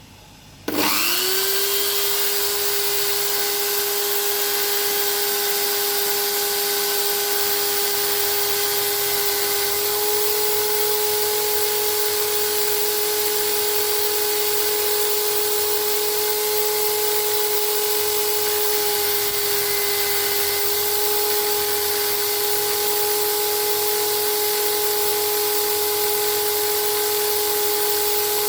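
A small electric motor switches on and spins up within a fraction of a second, then runs steadily with a high-pitched whine over a hiss.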